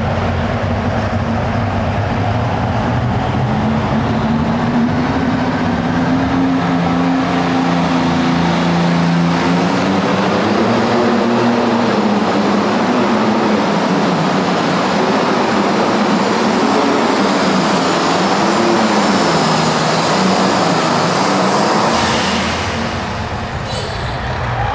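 International Harvester super stock pulling tractor's engine running at full power under the load of a pulling sled, its note wavering up and down as the tractor pulls. About two seconds before the end the engine note drops away and the overall sound dips as the pull ends.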